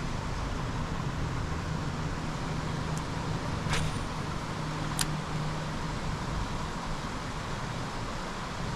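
A motor vehicle going by: a steady low engine hum over road noise, the hum dropping away about six seconds in. Two sharp clicks sound about four and five seconds in.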